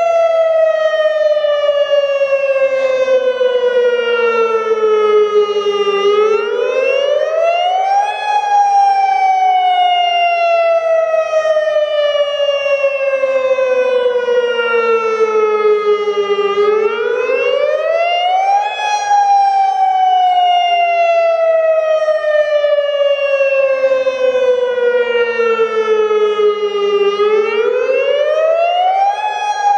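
Federal Signal Modulator 6048 outdoor warning siren sounding its wailing Attack signal. The pitch climbs over about two seconds, then sinks slowly over about eight seconds, and the cycle repeats about every ten seconds.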